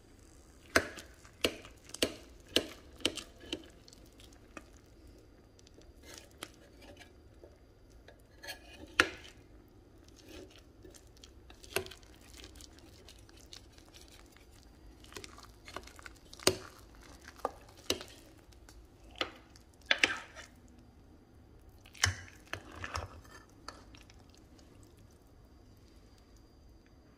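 Serving spoon knocking and scraping against the slow cooker's crock in a couple of dozen sharp separate clinks, bunched in the first few seconds, again around the middle and in a busier stretch later on, as the casserole is scooped out.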